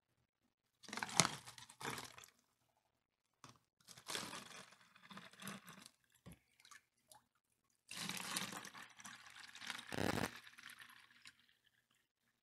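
Thin plastic water bottle and plastic funnel being handled, crinkling and crackling in three bursts, with water pouring through the funnel into the bottle near the end.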